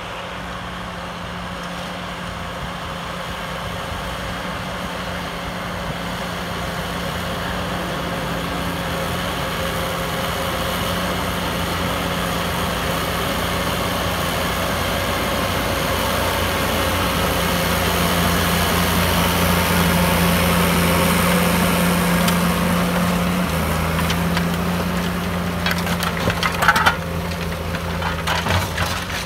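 JCB Fastrac 3220 tractor's engine running steadily while it pulls a harrow across ploughed ground, growing louder as the tractor draws near and easing off a little after about two-thirds of the way through. A few sharp clicks come near the end.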